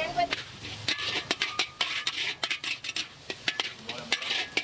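Metal spatula clanking and scraping against a wok as noodles are stir-fried, with rapid, irregular clinks over a steady sizzle.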